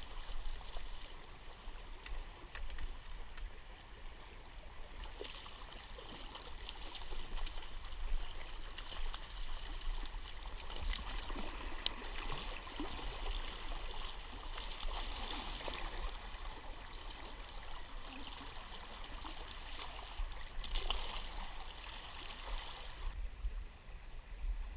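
Flowing river water, a rushing, gurgling hiss that swells louder in patches, with a low rumble underneath.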